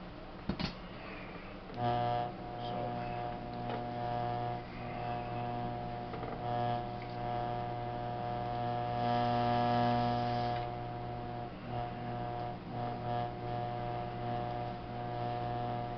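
Electric potter's wheel motor humming at a steady pitch, switching on abruptly about two seconds in as the wheel is brought up to speed for throwing.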